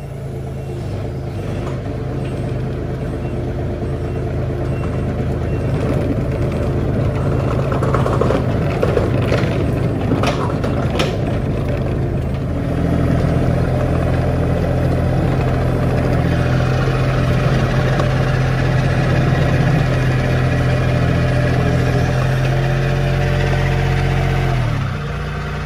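A 2005 John Deere mini excavator's diesel engine running as the machine backs up in two-speed mode, with a few knocks about ten seconds in; the engine gets louder about halfway and drops in pitch just before the end. The engine is still cold, and the drive belt slips and squeaks until the thermostat opens.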